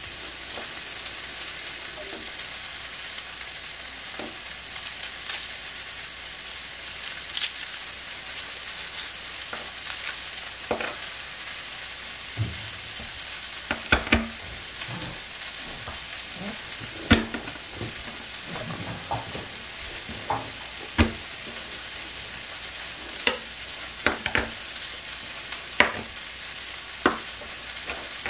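Chef's knife knocking on a wooden cutting board as garlic cloves are crushed and chopped: scattered sharp knocks, faint at first and louder and more frequent in the second half, over a steady hiss.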